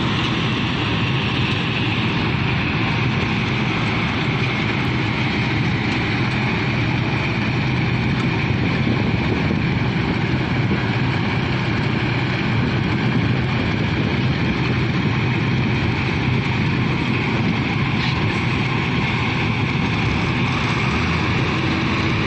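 Asphalt cold-milling machine running steadily: a low diesel engine drone under the dense rushing of its conveyor dropping millings into a dump truck.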